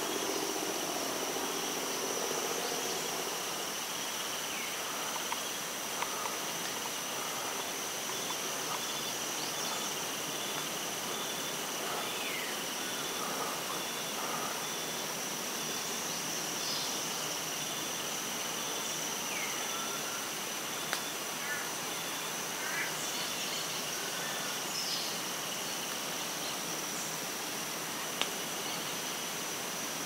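Tropical forest ambience: a steady high-pitched insect drone with an evenly pulsing insect chirp beneath it. Scattered short bird calls and a few sharp clicks are heard over it.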